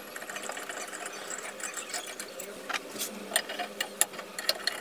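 Metal clicks and taps as a C-clamp is screwed down on a steel plate on a drill press table; the clicks become sharper and more frequent in the second half.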